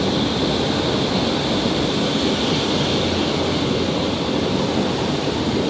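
Berlin U-Bahn IK-series train running past along the platform: a steady rumble of its wheels on the rails, with a high-pitched whine that fades after two or three seconds.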